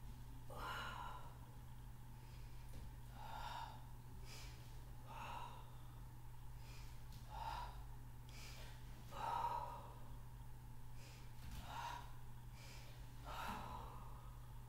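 A woman breathing hard through a Pilates exercise, a short audible breath every one to two seconds with the effort of each leg swing, over a steady low hum.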